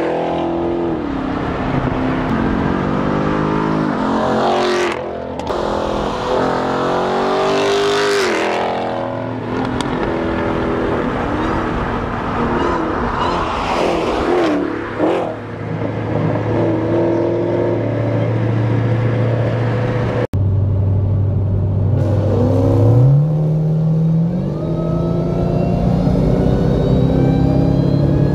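Dodge V8 muscle cars accelerating hard on a highway, the engine note climbing and dropping again and again as they shift through the gears and pass close by. After a sudden break, an engine heard from inside a following car drones steadily, then climbs as it pulls hard from a rolling start at 60.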